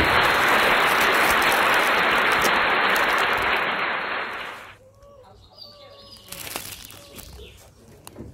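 A loud, steady hiss lasting about five seconds, which stops abruptly just under five seconds in.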